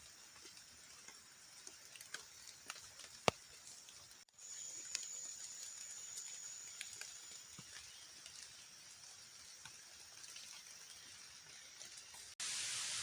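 Quiet jungle ambience with scattered light ticks and drips and a thin, high, steady whine for a few seconds. Near the end it cuts suddenly to a loud, even hiss of heavy rain.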